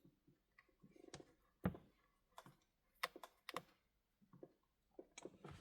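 Scattered light clicks and taps of small hand tools against phone parts during repair work, about eight in all with the sharpest one a little over a second and a half in.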